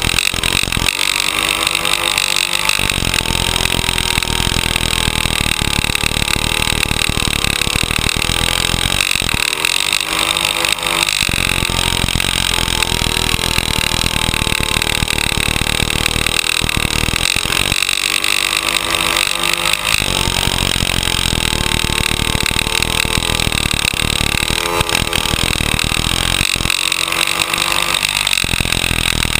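Speedway motorcycle's single-cylinder engine running hard at racing throttle, heard from the rider's helmet camera. About every eight seconds the engine note changes for a second or two as the throttle is worked through the bends.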